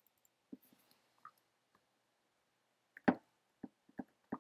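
Clicks from a computer being operated while a date is entered: a few faint ones, then four sharper clicks about a third of a second apart near the end, the first the loudest.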